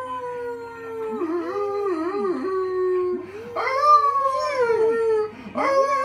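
Golden retriever howling: long drawn-out howls that waver and slide down in pitch, with short pauses about three seconds in and about five seconds in, before each new howl starts.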